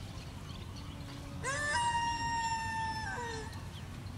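A dog howling once: the call rises quickly, holds one high, steady pitch for about a second and a half, then drops away at the end.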